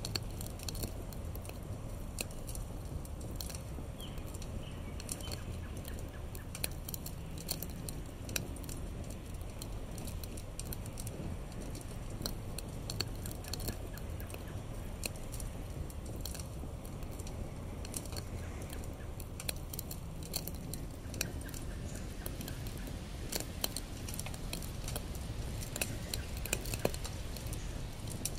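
Wood campfire crackling, with scattered sharp pops over a low steady background rumble; the pops come more often near the end.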